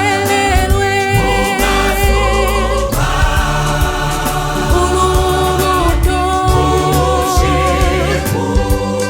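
Gospel choir singing in harmony over a low bass line and percussion.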